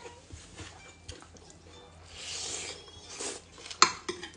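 People eating plov with forks: quiet chewing and mouth sounds, a short breathy hiss about halfway through, then a sharp clink of a metal fork against the plate near the end, the loudest sound.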